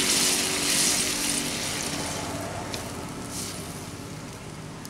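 Sizzling hiss from a hot pan of rice and lentils just after water has gone in, dying away steadily, with a spatula stirring through the liquid.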